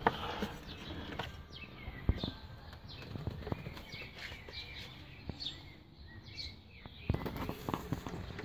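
Small birds chirping over and over in short falling chirps, with scattered sharp clicks and knocks of metal hose clamps and the intake pipe being handled and fitted, most of them near the end.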